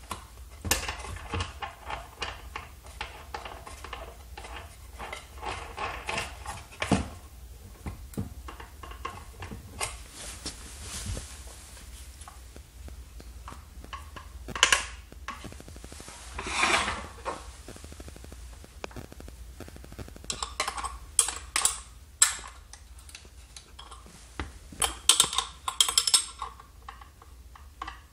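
Metal clinks, clicks and short rattles of an angle grinder being assembled by hand: a cut-off wheel set on the spindle, the guard turned on its collar, and the flange nut tightened with a pin spanner.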